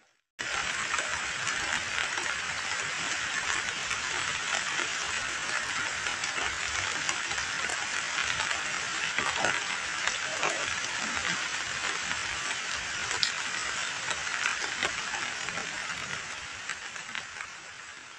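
Heavy rain falling onto muddy floodwater: a dense, steady patter of drops hitting the water surface. It begins suddenly just after the start and fades out near the end.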